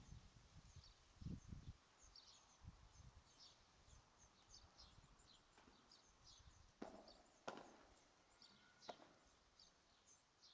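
Faint padel rally: three sharp knocks of the ball off rackets in the second half, about half a second to a second and a half apart. Small birds keep up a busy high-pitched chirping throughout.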